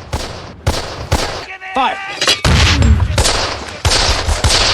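War-film battle sound: a string of sharp gunshots from rifles and automatic weapons, then from about halfway a dense, continuous din of heavy gunfire and explosions.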